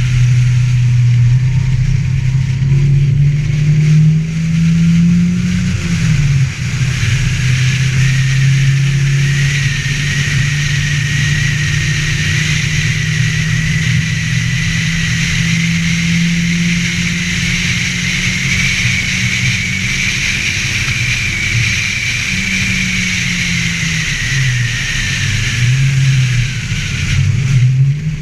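Ford Festiva's engine running hard under load, its pitch climbing and dropping repeatedly, with a higher whine rising and falling alongside it.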